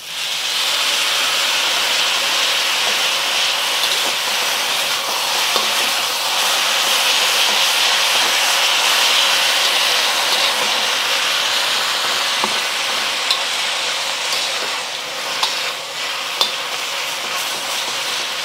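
Chow mein noodles stir-frying in a hot wok just after the soy sauce has gone in: a loud, steady sizzle that starts as the sauce hits the pan. A few short clicks sound over it in the second half.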